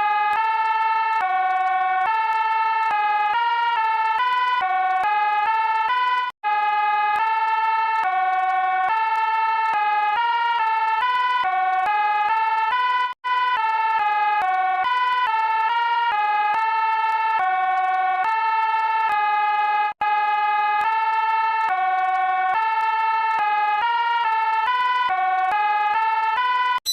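Electronic emergency alert alarm labelled a Brazil EAS alarm: a looping pattern of synthetic tones stepping up and down in pitch about twice a second. The pattern repeats roughly every six to seven seconds, with a brief drop-out between repeats.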